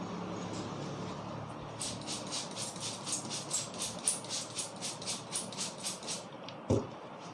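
A barber's hands striking the head in a tapping head massage: a quick, even run of about twenty sharp slaps, roughly four and a half a second, then one louder, dull thump near the end. A steady background noise runs underneath.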